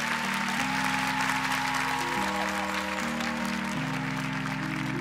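Live band's keyboard holding slow sustained chords that change every second or two, under audience applause.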